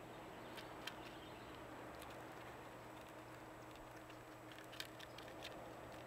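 Faint scattered clicks and rustles of sunflower seeds shifting as a chipmunk forages and fills its cheeks in a tray of seed, with two sharper clicks, one about a second in and one near the end.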